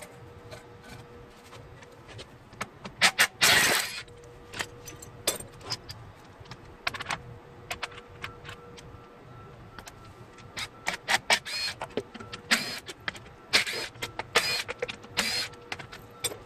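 Metal tools and engine parts clinking and clanking during an engine teardown: a string of sharp clicks and knocks, some with a short metallic ring, and one longer, louder rattle about three and a half seconds in.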